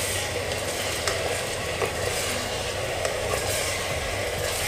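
Mutton pieces frying steadily in hot oil in a pressure cooker on medium-low heat, sizzling with a few faint crackles.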